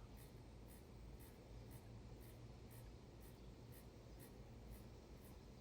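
Faint scratching of a small paintbrush working over watercolour paper, soft short strokes at about four a second, over a low steady hum.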